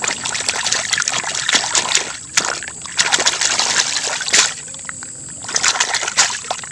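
Water splashing and sloshing as a toy military truck is scrubbed by hand in shallow muddy water, with short lulls about two seconds in and about five seconds in.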